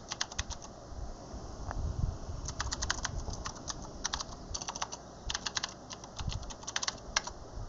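Computer keyboard typing in several quick bursts of keystrokes with short pauses between them, as a terminal command is entered.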